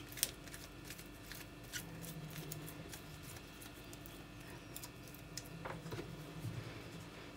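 Outer leaves of a raw artichoke being snapped off by hand: scattered faint crisp snaps and leafy rustles, with a faint steady hum underneath.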